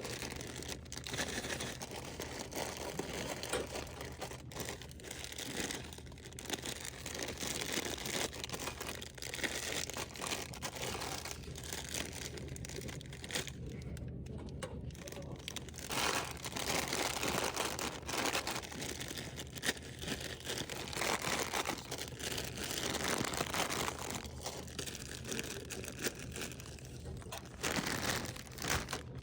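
Packaging crinkling and rustling as it is handled, with scattered short knocks and clicks throughout.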